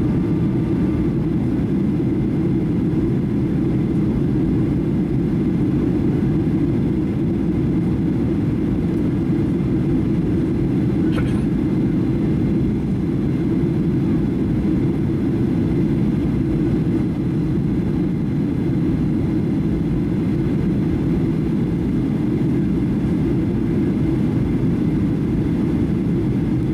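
Cabin noise inside a Boeing 737-800 in descent, heard by the wing: a steady low rumble of engines and rushing air.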